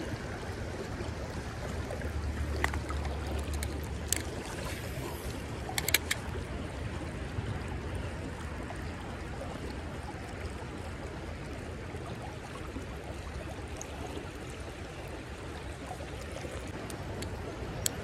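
Shallow creek water running steadily over rocks, with a few light clicks now and then.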